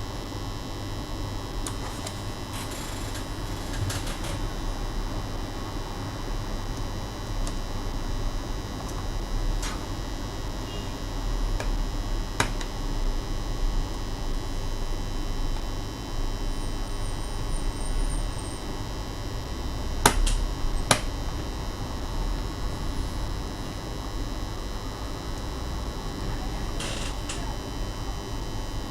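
Scattered light clicks and taps of laptop parts and tools being handled, with the sharpest pair about two-thirds of the way through, over a steady low hum.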